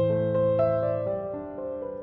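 Background instrumental music: slow keyboard notes ringing over a low sustained chord, which fades about halfway through.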